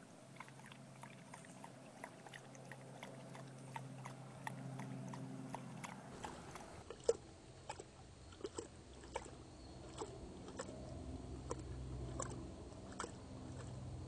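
Dog lapping lake water with her tongue, a steady run of wet clicks about two a second.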